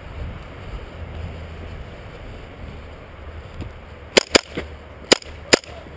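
Airsoft gun firing single shots: four sharp cracks and a fainter one in quick, uneven succession, starting about four seconds in.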